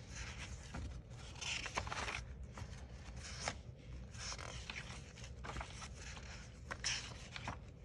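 Paper and cardstock journal pages being turned and handled, giving irregular soft rustles and swishes with a few light taps.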